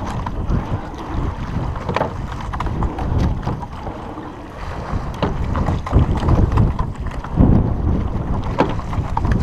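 Wind buffeting the microphone over the water as a sweep-oar rowing shell is rowed under way, with the rush of water along the hull and a few sharp knocks scattered through.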